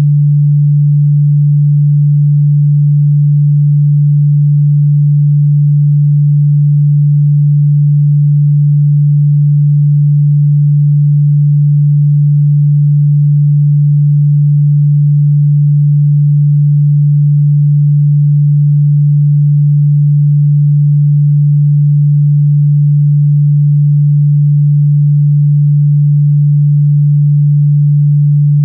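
A synthesized pure sine tone held steady at a low pitch, like a smooth hum, with no change in pitch or loudness: a meditation tone.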